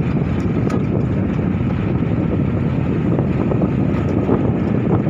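Steady low rumble of a moving vehicle mixed with wind buffeting the microphone.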